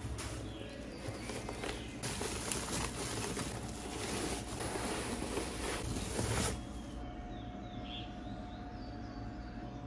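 Rustling and handling of a new monitor's packaging, with many small clicks and knocks, for about six and a half seconds; it then stops, leaving a faint steady hum and a couple of short bird chirps.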